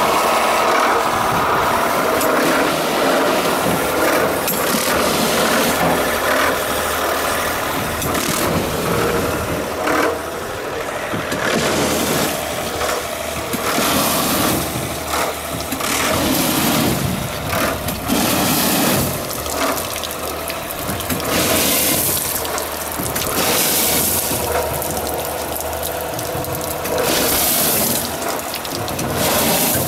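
A low-pressure water pumping system runs steadily while water-driven cleaning projectiles are shot through heat exchanger tubes. In the second half there are repeated bursts of water spray, every second or two, as each shot comes out the tube ends and splashes against a tarp and into a drum.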